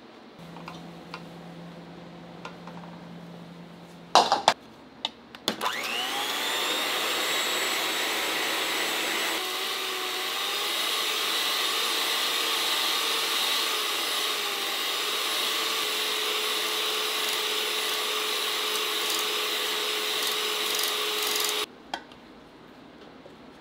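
An electric kitchen machine's motor switched on, whining up to speed within about a second, then running steadily and loudly for about sixteen seconds before cutting off suddenly. A few sharp clicks come just before it starts.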